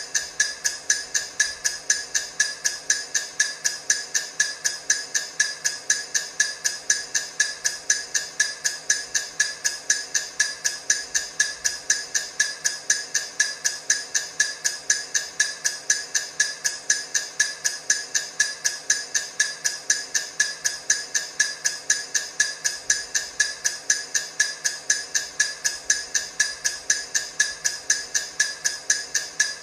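Clock-style ticking of a countdown timer: sharp, even ticks, several a second, each with a short bright ring, keeping a steady pace and level throughout.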